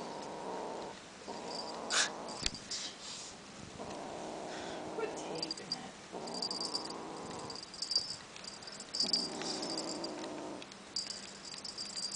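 A kitten growling low over a feather toy it is guarding, in about five rumbling stretches of a second or so each with short pauses between. The little bell on the toy jingles between growls as the kitten bites and paws at it.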